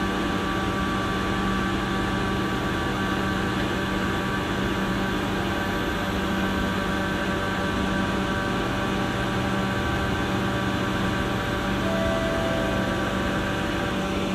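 Steady hum inside a stationary MRT train carriage: the train's onboard equipment and ventilation running, with several constant tones in the hum.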